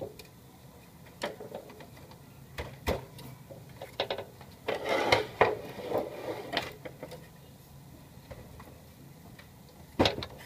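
Plastic clicks, knocks and rattling from the casing and parts of an HP LaserJet Pro M225dw printer being handled during disassembly. The rattling is busiest around the middle, and there is one sharp knock near the end.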